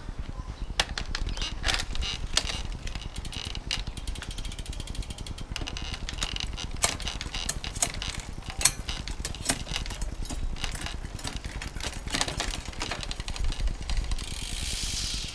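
Road bike drivetrain turned by hand on a workstand: the chain running over a Shimano 105 11-speed setup with an 11-40 cassette and the derailleur jockey wheels, with repeated sharp clicks and a stretch of rapid ticking about four seconds in.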